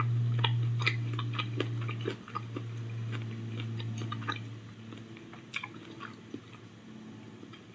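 A person chewing a bite of smoked hot link, with many small wet mouth clicks, over a steady low hum that fades out about halfway through.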